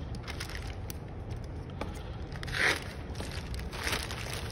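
Plastic courier mailer being torn open and pulled apart by hand, the film crinkling and rustling with small scrapes and clicks; one louder rip about two and a half seconds in.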